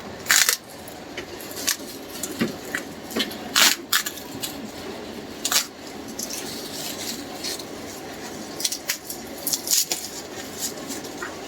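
Irregular clicks, taps and light knocks of a boxed item and its packaging being handled, with a soft rustle between them.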